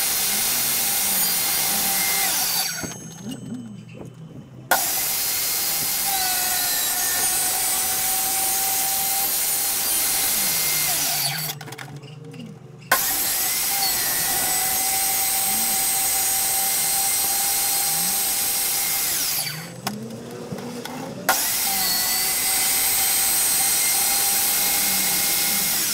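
Einhell TC-TS 2025 table saw running with no load, its motor whining steadily. It is switched off three times, winding down each time, and restarted a second or two later with a sudden jump back to full running.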